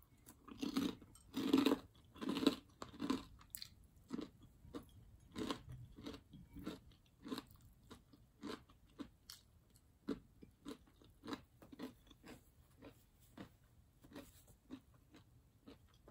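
Close-up chewing of crispy breaded fried chicken and rice. A few loud crunchy bites in the first three seconds, then steadier, softer chewing at about one and a half chews a second.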